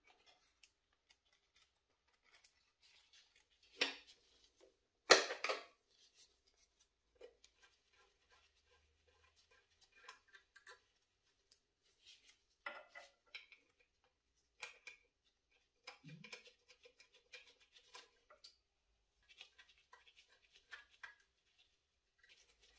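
Metal fittings and tools being handled at a Bosch K-Jetronic warm-up regulator's fuel line banjo connections: scattered light clicks and clinks, with two louder knocks about four and five seconds in.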